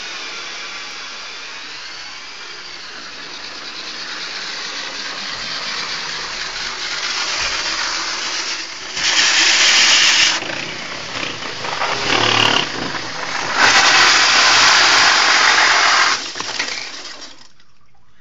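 Electric drill with a core bit grinding through a masonry wall: a steady motor whine and grinding, with two louder, harsher stretches of grinding, the first about halfway and the second later. It cuts off about a second before the end as the bit comes through the wall.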